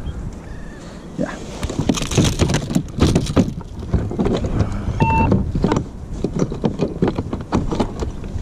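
Water splashing and sloshing around a kayak in a run of irregular splashes, with a short beep about five seconds in.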